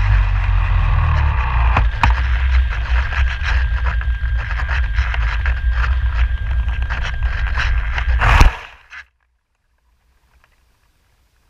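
Wind buffeting the onboard camera of a Radian Pro RC glider as it glides in low over a field, a heavy rumble with many small clicks. About eight seconds in comes a loud scraping thud as it touches down in tall grass, and the sound cuts off suddenly to near silence.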